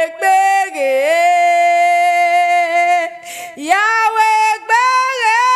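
A woman wailing a loud, sung lament: long held cries that slide between notes, with a short break about three seconds in before the next cry swells up.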